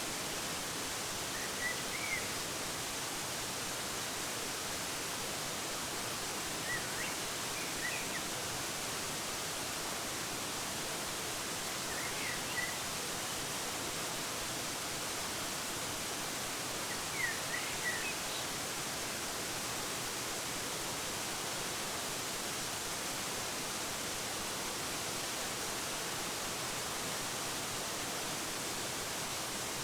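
Waterfall rushing steadily, with a small bird chirping briefly four times, about five seconds apart.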